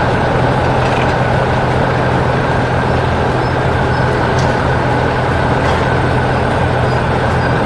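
Heavy construction machine engines running steadily, a continuous low rumble.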